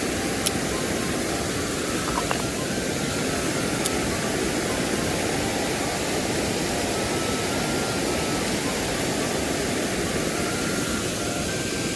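Mountain stream rushing over rocks, a steady full water noise, with a few light clicks in the first four seconds.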